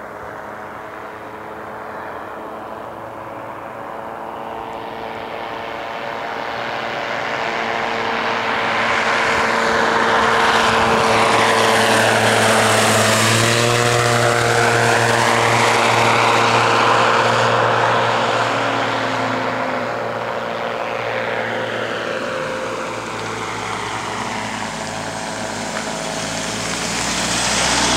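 Apollo Monsoon microlight trike's engine and propeller flying past low. The drone builds as it approaches, drops sharply in pitch as it passes close about halfway through, then fades as it climbs away and swells again near the end.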